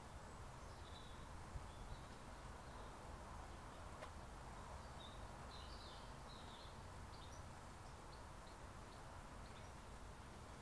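Faint steady outdoor background noise with scattered short, high chirps of small birds, busiest around the middle.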